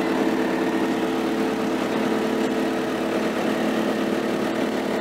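Ajax Fiori Argo 4000 self-loading concrete mixer's Kirloskar water-cooled diesel engine idling steadily, heard from inside the operator's cab.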